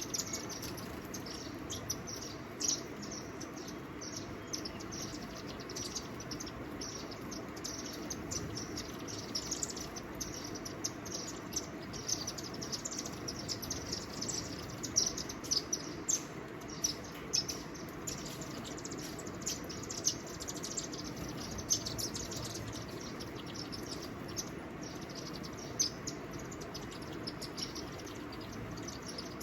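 Small birds chirping: many short, high chirps, crowding and overlapping throughout, over a steady low background hiss.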